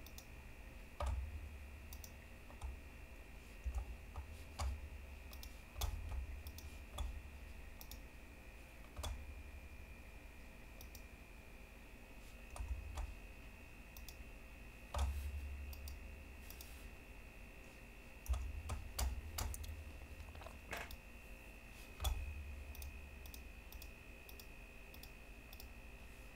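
Computer mouse clicks, quiet and irregular, a second or a few seconds apart, with dull low thumps and a faint steady high whine underneath.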